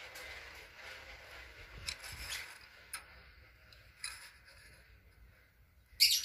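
Metal air-rifle parts being handled and fitted together by hand: a few short clicks and taps spread through, with a louder sharp clack near the end.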